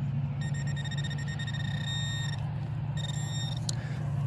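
Metal detector target tone: a steady high beep held for about two seconds, then a shorter one, as the coil or probe passes over a buried coin-sized target. A steady low hum runs underneath.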